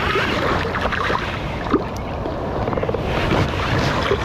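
Water splashing as a hooked fish thrashes at the surface while it is played and drawn into the landing net, with wind buffeting the microphone.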